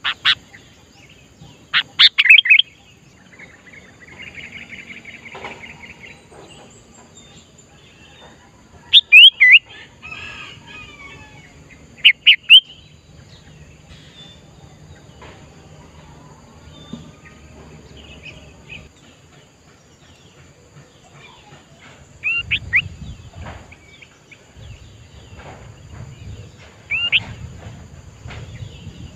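Sooty-headed bulbul calling: short, loud clusters of sharp whistled notes a few seconds apart, with a harsher buzzy chatter about four seconds in.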